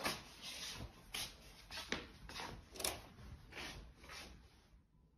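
A cat scrabbling and scratching, a run of short rubbing scrapes at about two a second that stops near the end.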